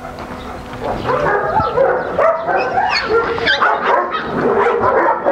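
Several dogs barking and yelping over one another, a dense run of short overlapping calls.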